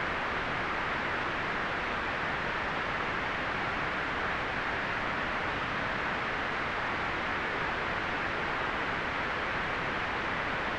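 Steady white noise: an even, unchanging hiss, fullest in the middle and upper-middle range and thinning toward the top.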